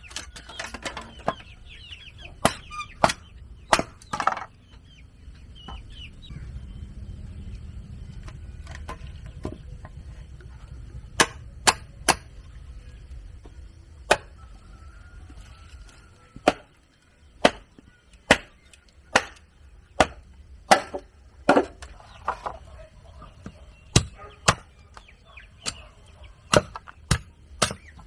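Repeated sharp strikes on wood, a tool hitting timber at irregular intervals of about one a second, with a pause of several seconds early on. Chickens cluck faintly in the background.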